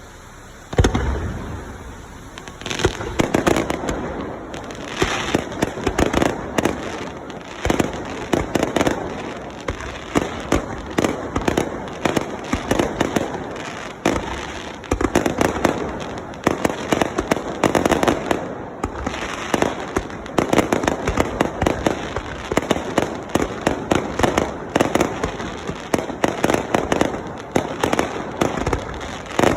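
Aerial fireworks: a deep boom about a second in, followed by a rapid, dense run of bangs and crackling shells.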